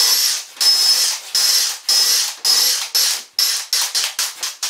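Power drill driving small 3/4 inch stainless steel screws into a wooden panel with a Robertson bit. It runs in short stop-start bursts of high whine, about half a second each, then several quick trigger pulses from about three and a half seconds in.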